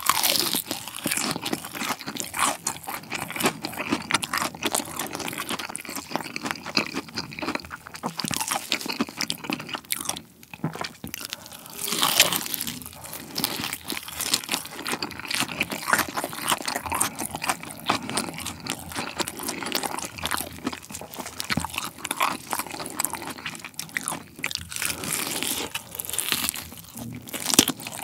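Close-miked crunching and chewing of crispy fried chicken: a drumstick's coating bitten into, then chewed in quick, irregular crackles, with a louder bite about twelve seconds in.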